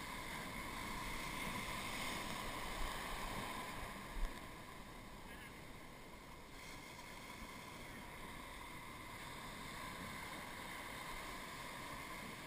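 Steady wash of shallow surf around a surf boat and the legs of the crew holding it, with wind noise; a short low thump about four seconds in.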